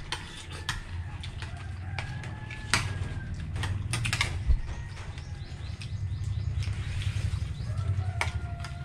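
Scattered light clinks and taps of a spoon and fork against plates during a meal, over a steady low hum. Near the end a rooster begins to crow.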